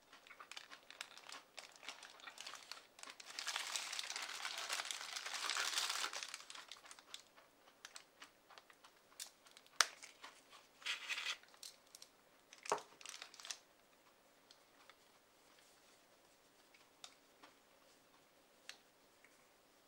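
Paper food wrapper crinkling loudly for about three seconds as a burger is unwrapped. A few sharp clicks and short rustles follow as a small opened metal can is handled, then only faint handling ticks.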